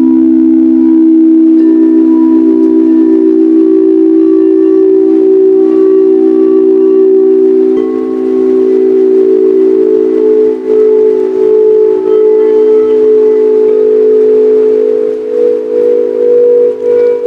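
Several singing bowls sounding together in long, sustained tones that pulse and waver against each other, with a higher bowl tone joining about eight seconds in.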